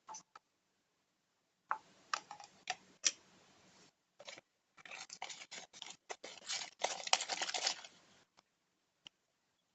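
Homemade borax-activated slime, still sticky, being worked and mixed, giving crackling, clicking squelches in two stretches: one starting about two seconds in, and a longer, louder one from about five seconds.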